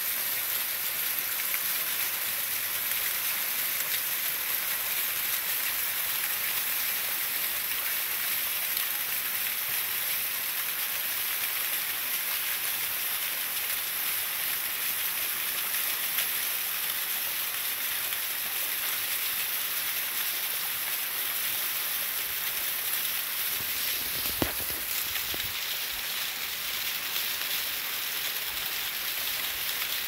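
Small waterfall splashing down over rock: a steady hiss of falling water. One brief knock about two-thirds of the way through.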